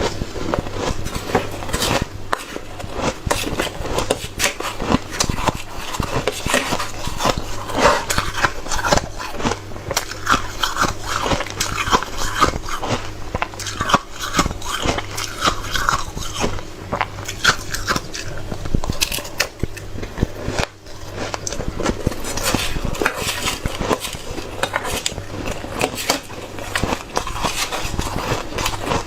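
Hard, frosty shaved ice being bitten and chewed close up: a dense run of crunches and crackles, with short squeaky notes in the middle.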